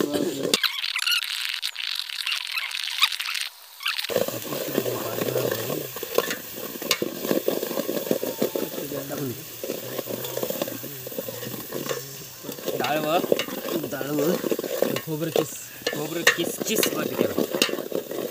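A steel ladle stirs and scrapes around a metal pot of chicken curry gravy cooking over a wood fire, with many small clinks and scrapes over a sizzle. About half a second in, the lower sounds drop out for some three seconds, leaving only the thin sizzle.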